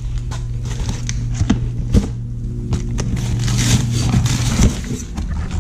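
Clicks and rustling of a parts package being handled and opened, over a steady low hum that stops near the end.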